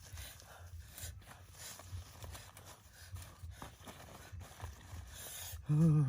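Low rustling and handling noise, then near the end a short, loud, low voice-like sound with a wavering pitch.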